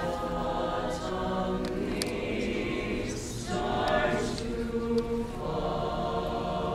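Mixed choir of male and female voices singing held chords, moving to a new chord about halfway through.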